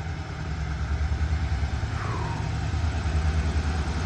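Heavy diesel engine idling out of sight: a steady low rumble. A short falling tone comes about two seconds in.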